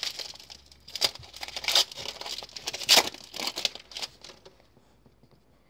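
Foil wrapper of a Panini Score football card pack being torn open and crinkled by hand: sharp crackling bursts for about four seconds.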